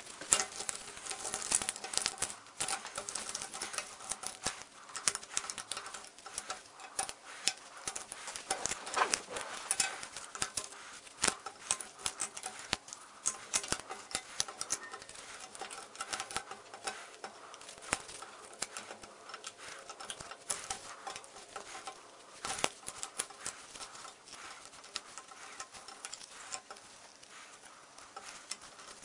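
Cardboard jigsaw puzzle pieces being handled, shuffled and set down on a tabletop: an irregular run of light clicks and taps.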